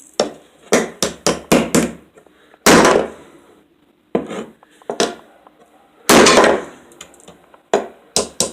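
Repeated hard whacks on a toy car lying on a wooden table: a quick run of sharp knocks, with two longer, louder crashes about three and six seconds in, as the car is smashed apart.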